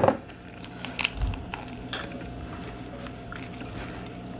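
A flour tortilla wrap filled with lettuce and chicken being rolled up and handled by hand on a plate: a sharp knock at the start, then a few lighter clicks and taps over the next two seconds amid soft rustling.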